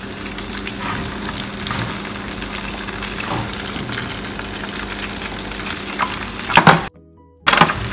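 Crumbed pumpkin rolls sizzling and crackling in the hot oil of a commercial deep fryer, over a steady low hum. A few sharp knocks come near the end, and then the sound cuts out for a moment.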